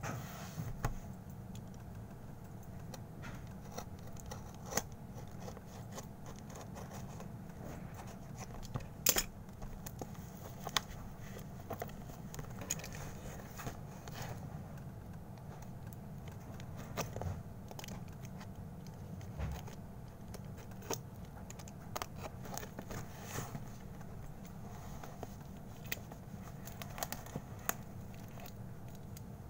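Box cutter scraping and slicing through a taped parcel's wrapping, with scattered sharp clicks and crackles of the packaging being handled, over a steady low hum.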